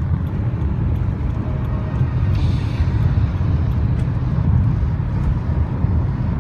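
Steady low rumble of a car's engine and tyres on the road, heard from inside the cabin while driving, with a brief rush of hiss about two and a half seconds in.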